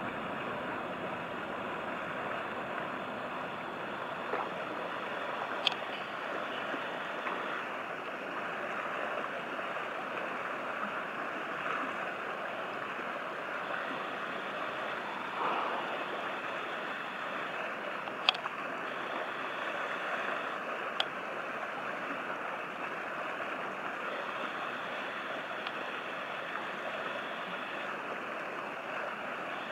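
Steady rushing wash of river water along the bank, with three short sharp clicks.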